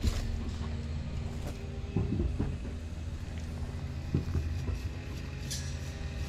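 A steady low hum, with a few short faint sounds about two seconds and four seconds in.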